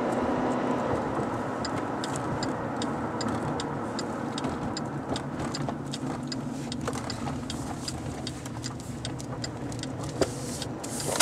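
Steady road and engine noise inside the cabin of a 2008 Chevrolet Malibu with a four-cylinder engine, driving along, with scattered light clicks and one sharper tick about ten seconds in.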